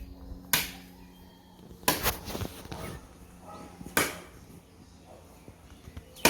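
Blade chopping into a tree trunk: about five sharp, separate blows landing irregularly a second or two apart.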